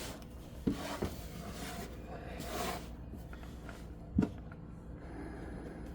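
Faint handling noises as lint and stray items are pulled from behind a dryer: a few light knocks, the clearest about four seconds in, and a brief rustle in the middle.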